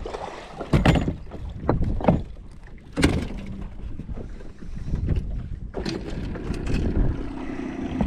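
Wind on the microphone and several sharp knocks as a bow-mount trolling motor is pulled up and stowed on an aluminum fishing boat. About two-thirds of the way through, a steady hum abruptly takes over.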